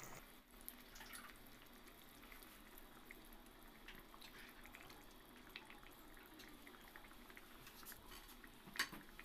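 Faint bubbling and small popping of masala curry gravy simmering in a pan, with scattered light pops throughout. One short knock near the end.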